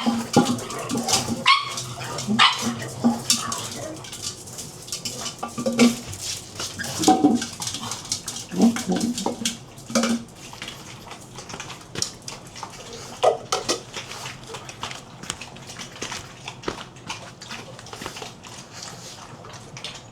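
Pugs giving short barks and whines, mostly in the first half, over scattered sharp clicks and clatter.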